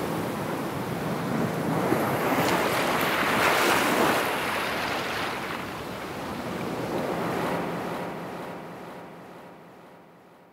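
Sea surf: waves swelling and washing in, with two surges, then fading out toward silence near the end.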